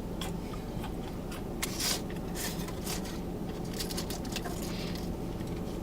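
Steady low hum of a car idling with its air conditioning running, with scattered short crackles and clicks of eating and handling food packaging, a louder cluster about two seconds in.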